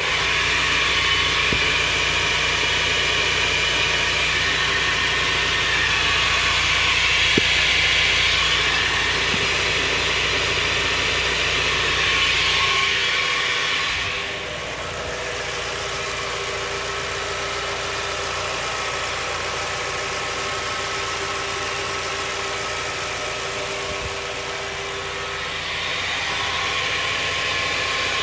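2003 Mazda Miata NB's drivetrain running with the car on jack stands and the wheels turning: a steady engine hum with a steady tone over it, dropping a little in level about halfway through. It is the noise the owner is chasing, one that follows road speed rather than revs and that he puts down to the transmission, having ruled out wheel bearings and differential oil.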